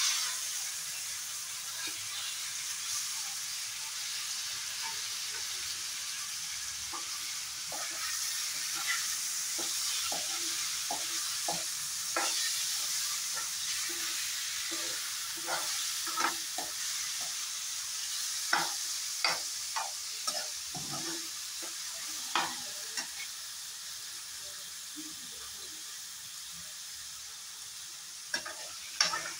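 Boiled bottle gourd sizzling in hot oil in a wok, the sizzle slowly dying down. A steel spatula stirs it, clicking and scraping against the pan from several seconds in.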